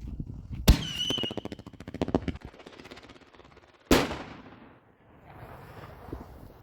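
7-inch strobing thunder aerial firework shell: a sharp bang followed by about two seconds of rapid, dense crackling, then a second loud bang about three seconds later that dies away in a long rolling echo.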